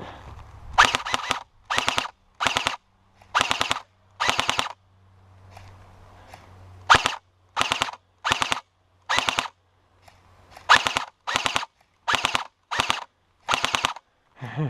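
Airsoft electric gun firing on full auto in about fifteen short bursts, each a fraction of a second of rapid snapping shots. There is a pause of a couple of seconds in the middle.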